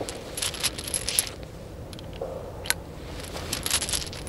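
Loose .357 Magnum cartridges clinking as they are fished from a jacket pocket and loaded by hand into the open cylinder of a Chiappa Rhino revolver. There are two runs of light metallic jingling, one near the start and one about three seconds in, with a single click between.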